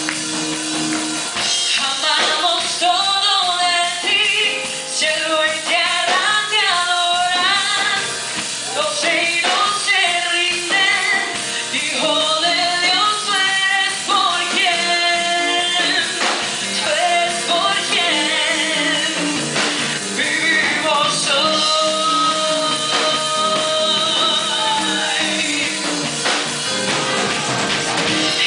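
Live worship song in a church: a woman sings the lead into a handheld microphone over instrumental accompaniment, with backing singers joining in.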